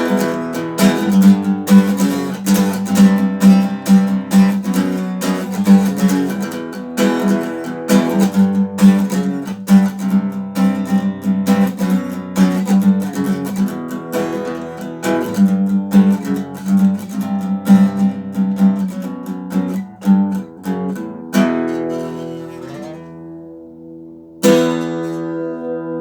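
Acoustic guitar strummed in a steady rhythm, closing out the song after the last sung line. The strumming stops about 21 seconds in and lets the chords ring. Near the end a single final chord is struck and left to ring out.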